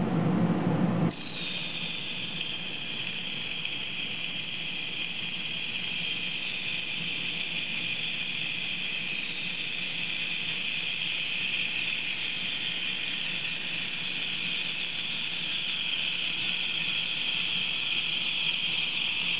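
High-power ultrasonic processor with a barbell horn sonicating epoxy resin: a steady high-pitched hiss of cavitation that grows slowly louder as the horn ramps up toward its full amplitude. In the first second a louder, lower hum cuts off suddenly before the hiss takes over.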